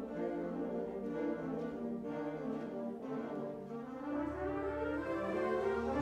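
Concert wind band playing sustained chords with the brass to the fore. A low bass note comes in about four seconds in and the music swells louder.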